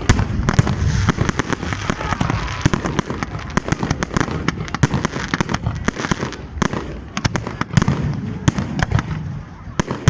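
Fireworks display: a rapid, irregular run of sharp bangs and crackles from bursting shells, with a low rumble underneath.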